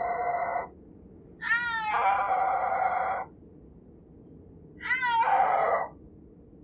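Snow leopard yowling: loud, drawn-out cat calls, each opening with a sharp bending cry and then held, repeated about every three seconds. One call ends just after the start, and two more follow.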